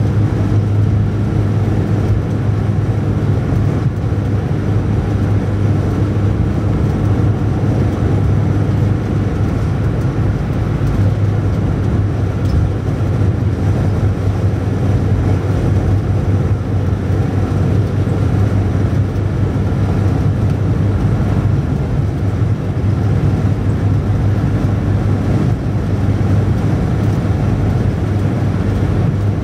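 A car driving at a steady speed: a constant low engine drone under tyre and road noise.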